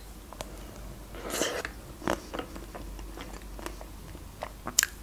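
Close-up mouth sounds of biting and chewing a chocolate-coated Magnum ice cream bar: the thin chocolate shell cracks in small crunches, with one fuller crunch about a second and a half in and a few light clicks after it.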